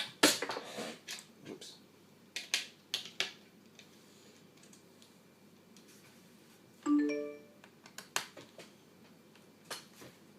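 Scattered plastic clicks and taps of laptop keyboard and palm-rest parts being handled and unclipped. About seven seconds in, a short electronic chime, a single ding that fades within a second.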